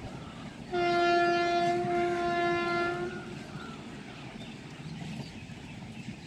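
Horn of an approaching Indian Railways train, sounding one long steady blast of about two and a half seconds, over a low steady rumble from the train.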